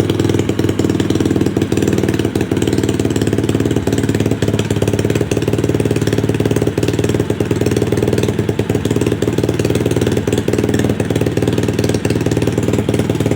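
SSR pit bike's small single-cylinder engine running at a steady idle after a carburetor rebuild, no longer needing starter fluid to start.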